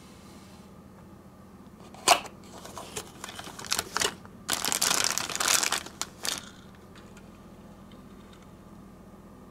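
One sharp click about two seconds in, then the crinkling of a thin clear plastic bag as a die-cast toy car is handled and slid out of it, loudest about halfway through and stopping well before the end.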